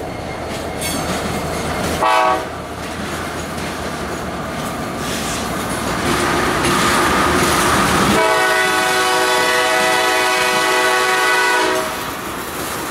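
Freight train passing close by. The trailing diesel locomotive goes by first, then covered hopper and tank cars roll past with wheel clatter on the rails. A train horn gives a short toot about two seconds in and a longer blast from about eight seconds until nearly twelve.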